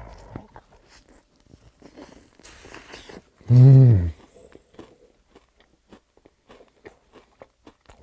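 Crunchy fried chicken being bitten and chewed close up, with many small crisp crunches and wet mouth clicks. About three and a half seconds in comes a short, loud hummed 'mmm' of enjoyment through a full mouth.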